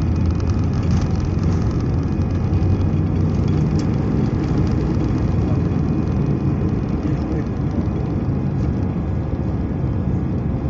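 Steady cabin noise inside an Airbus A319 airliner: the jet engines and airflow make an even, loud rumble with a low drone.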